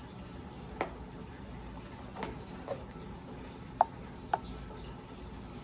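A handful of light, sharp clicks and taps, five in all and the two near the end the loudest, as boxed camera accessories are handled, over a steady low hiss.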